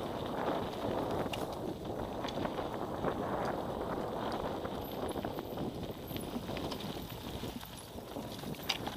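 Mountain bike rolling down a dirt singletrack: tyres rumbling over dirt and stones, with scattered rattles and knocks from the bike.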